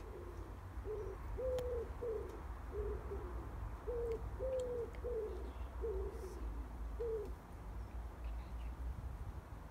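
A pigeon cooing, a run of low coos in two phrases with a longer note near the start of each. The cooing stops about seven seconds in, over a steady low background rumble.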